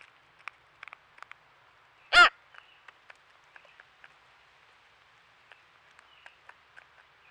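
An American crow gives one loud, short caw about two seconds in. Around it, scattered light clicks of crows' beaks picking black sunflower seeds off a wooden log.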